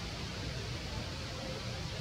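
Steady outdoor background noise: an even hiss with a low rumble underneath, with no distinct calls or knocks.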